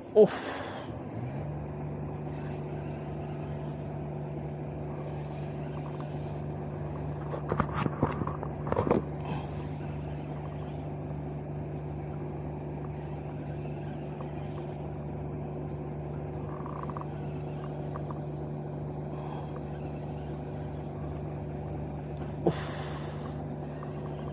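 An engine running steadily at a constant speed and pitch, starting about a second in. A few short clicks and knocks of fishing tackle being handled come through around eight seconds in and again near the end.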